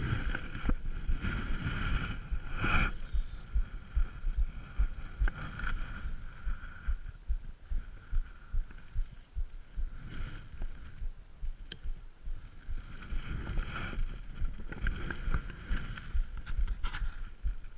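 Wind buffeting the microphone outdoors, an irregular gusty low rumble, with a few brief noisier bursts.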